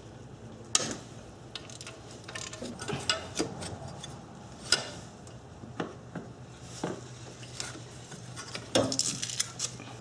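Scattered metallic clicks and clinks as the last fastener is undone and the metal cover plate over the fuel injector is worked loose and lifted off the intake manifold, with a small cluster of knocks near the end.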